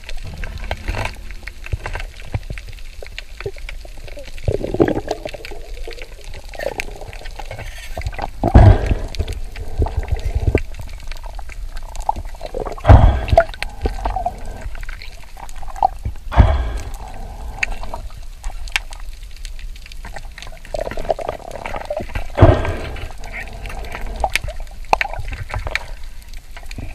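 Underwater sound of water moving around a submerged action camera: a steady low rumble and gurgle, with a loud, deep swash every few seconds as the swimmer moves.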